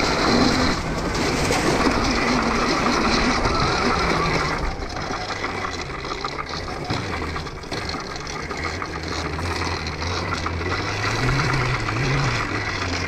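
Homemade electric dirt bike being ridden off-road: a steady hum from the electric motor and drivetrain over the rolling noise of the tyres on a dirt trail. The hum rises briefly in pitch about eleven seconds in.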